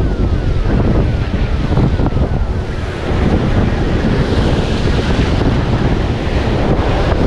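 Wind buffeting the microphone over waves breaking on a rocky shore. A faint, short falling squeak repeats about three times a second for the first few seconds, then stops.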